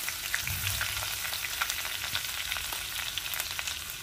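Cumin seeds and chopped ginger sizzling in hot oil in a kadhai: a steady frying hiss with scattered small pops and crackles.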